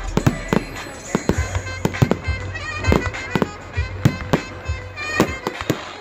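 Fireworks display: aerial shells bursting in a rapid run of sharp bangs and crackles, several a second, with music playing underneath.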